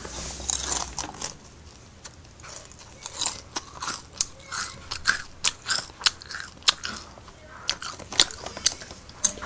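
Someone biting and chewing Honey Butter Chip potato chips: irregular crisp crunches, about two or three a second.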